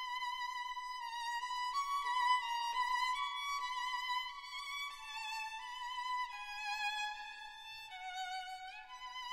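Background music: a violin playing a slow, high melody of long notes with vibrato, sliding up into a new note near the end.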